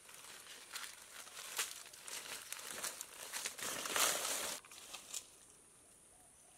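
Leaves and twigs rustling and crackling as fallen ambarella fruit are gathered by hand from leafy forest ground. The rustling is loudest about four seconds in, then dies away.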